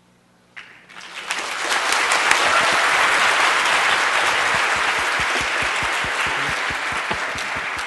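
Audience applauding at the end of a talk: the clapping starts about half a second in, swells to full within a second and keeps going steadily.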